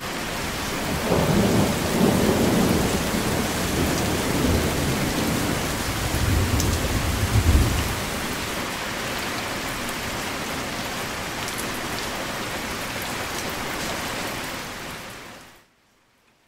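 Heavy rain falling, with a rolling rumble of thunder through the first half that swells to its loudest about seven and a half seconds in. The rain then goes on steadily and fades out near the end.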